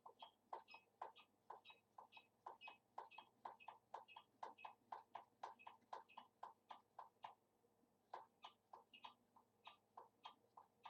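Hand air pump being stroked over and over to pressurise a homemade air-powered rocket launcher. It makes a quick, even run of soft clicks, about three a second, with a short pause about two-thirds of the way through.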